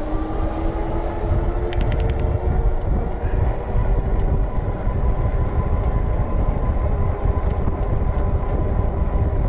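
Wind rumble on the microphone and fat-tire road noise, with the e-bike's hub motor whining steadily under full pedal assist. The whine rises a little in pitch as the bike speeds up to about 22 mph. A brief run of sharp clicks comes about two seconds in.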